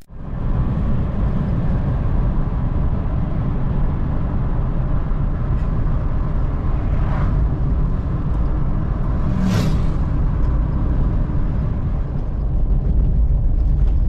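A car on the move, heard from inside: steady low rumble of road and engine noise, a little louder near the end.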